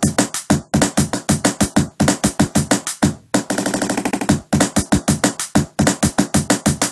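Chopped, looping electronic beat: short sampled snippets retriggered rapidly, about five or six times a second, in a stuttering rhythm, with a brief break a little after three seconds in.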